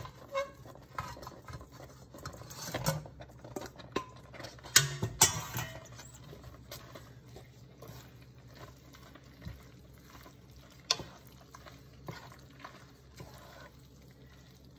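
Drained egg noodles tipped from a stainless steel colander into a pot of creamy sauce and stirred in with a wooden spoon: wet stirring and squishing with scattered knocks against the pot, the loudest about five seconds in.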